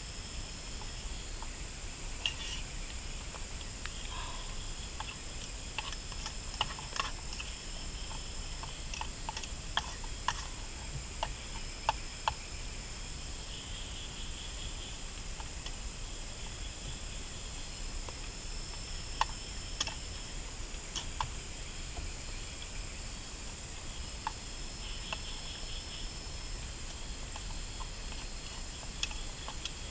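Night-time tropical jungle insect chorus: a steady high-pitched chirring, with other insect calls swelling and fading over it and a low steady rumble underneath. Scattered light clicks of a spoon against a small camp cooking pot come in clusters through the middle.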